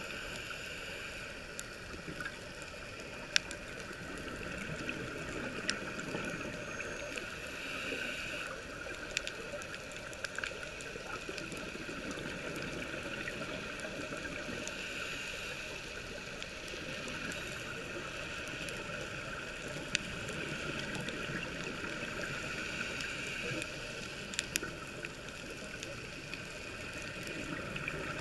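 Muffled underwater sound through a camera's waterproof housing during a scuba dive: a steady hiss and rumble of water, swelling about every seven seconds as the diver breathes out through the regulator, with scattered sharp clicks.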